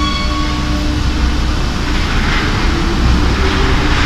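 Paris Métro MF77 train pulling out of the station: a steady motor whine that stops about a second in, over a continuous low rumble of wheels on rails. A second MF77 train arriving on the other track adds growing rail noise in the second half.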